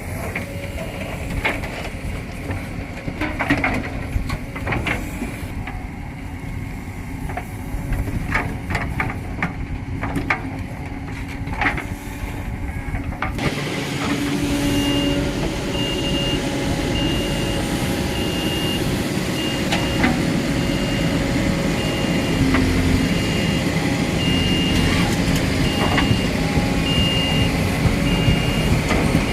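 Backhoe loader's diesel engine running steadily, with sharp knocks through the first half. About halfway through, a reversing alarm starts beeping in a regular rhythm over the engine, the sign of the machine backing up.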